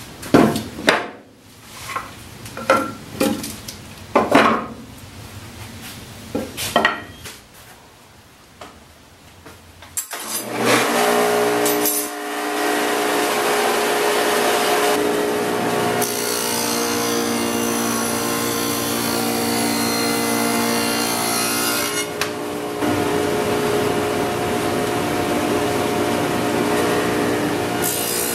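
A series of sharp knocks and taps, then about ten seconds in a table saw with a dado blade starts up and runs steadily as poplar rails are pushed through to cut grooves.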